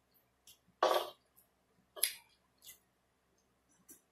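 A woman's short throat sounds: a loud, brief cough-like burst about a second in and a softer, higher one about two seconds in, amid a few faint clicks.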